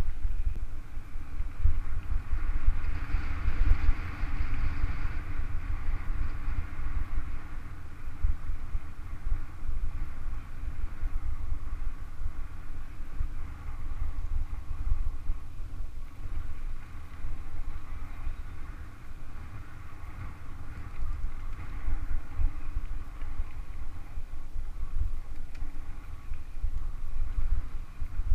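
Mountain bike riding down a dirt trail: wind buffeting the microphone in a continuous, fluctuating low rumble, over a hiss of tyres on dirt that is louder a few seconds in.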